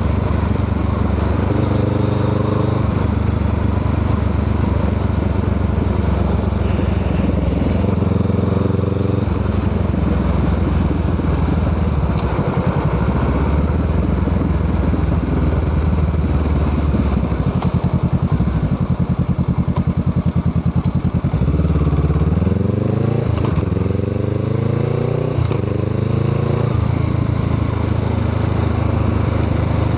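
Honda Rebel 500's parallel-twin engine running through an aftermarket Musarri muffler. Midway the note drops low with a slow, even pulsing, then climbs in pitch in about three rising sweeps before settling back to a steady run.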